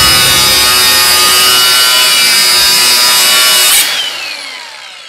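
FLEX angle grinder grinding steel: a loud, steady motor whine over a harsh grinding hiss. About four seconds in the grinding stops abruptly and the whine falls away in pitch and fades as the disc winds down.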